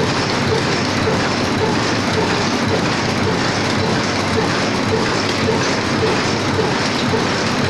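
High-speed paper cup forming machine running, a steady loud mechanical clatter with a regular beat about two to three times a second as its rotary turret indexes from cup to cup.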